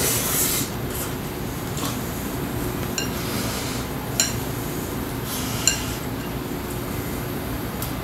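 Chopsticks clinking against a ceramic serving bowl three times, each a sharp click with a brief ring, as food is picked out. A short noisy mouthful comes at the start, over a steady low background hum.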